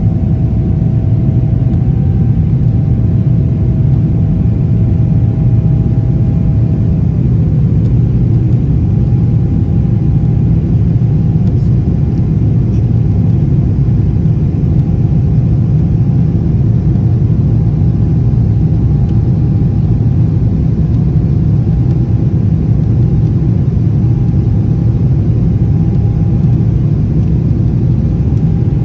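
Jet airliner cabin noise in flight: the engines and the rushing air make a loud, steady low rumble, with faint steady hums that come and go.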